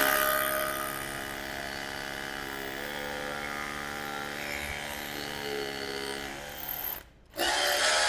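DeWalt DCH133N cordless SDS-plus rotary hammer drilling into a concrete floor: a steady whirring hum that shifts in pitch about three seconds in. It breaks off briefly near the end, then comes back louder.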